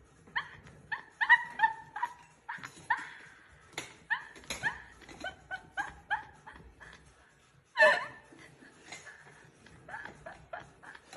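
A dog making many short, high-pitched yips and whines in quick irregular bursts, with one louder yelp about eight seconds in.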